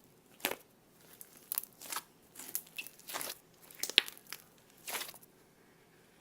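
Slime being squished, making irregular crackling, popping bursts that stop a little after five seconds in.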